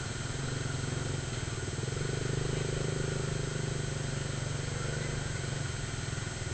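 A vehicle engine running steadily, its low hum growing louder about two seconds in and fading again near the end.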